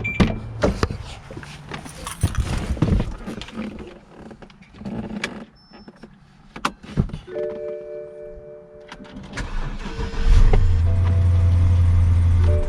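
Clicks and knocks of handling at the start, then a steady hum comes on about seven seconds in. About ten seconds in, a 2006 BMW 750i's 4.8-litre V8 cranks, catches and runs steadily: the car starts with the repaired key fob.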